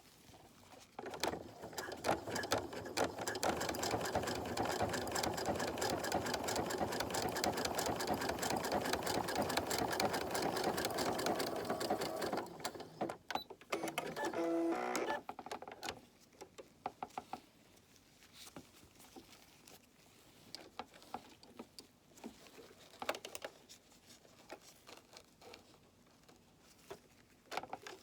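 Sewing machine running at a steady fast rhythm for about eleven seconds, stitching an overlocking stitch through elastic and the mask's edge. It stops, runs again briefly a couple of seconds later, then gives way to scattered light clicks of handling.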